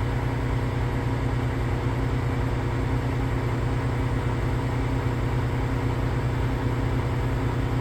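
Volvo A40 articulated haul truck's diesel engine running steadily during a DPF regeneration, a constant low hum.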